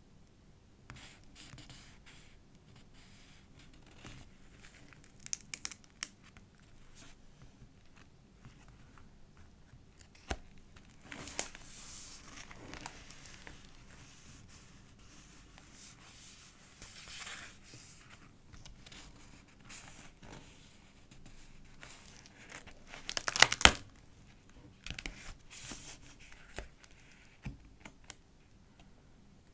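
Paper journal pages being turned and handled, rustling and crinkling in scattered bursts, with the loudest crackling cluster about three-quarters of the way through.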